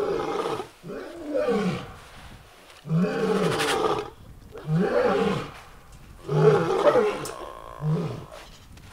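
A big cat roaring in a series of about six low calls, one every second and a half or so.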